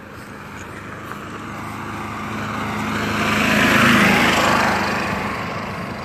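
An engine-driven vehicle or machine passing close by, growing louder to a peak about four seconds in and then fading.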